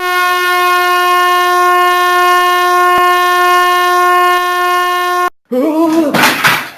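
A loud, steady, buzzy horn-like tone at one unchanging pitch, held for about five seconds and cut off abruptly, followed by a short burst of voice.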